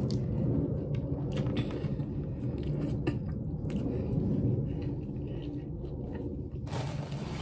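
A person chewing a large mouthful of Subway sub sandwich (soft bread roll, lettuce, meats, sauce) close to the microphone, with wet mouth clicks and smacks. A short burst of broader noise comes near the end.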